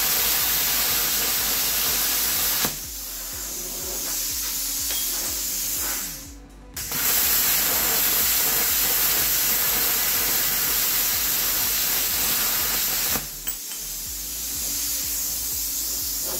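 Bestarc BTC500DP air plasma cutter cutting 4 mm steel plate: the arc and compressed air give a loud, steady hiss that cuts off about three seconds in, and then a softer hiss of air blowing through the torch head to cool it for a few seconds. A second cut starts about seven seconds in, runs about six seconds, and is again followed by the softer cooling-air hiss.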